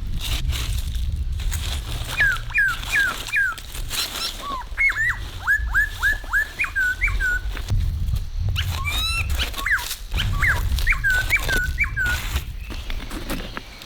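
A dog whining in several runs of short, high, falling whimpers, over low rumbling noise and scattered clicks.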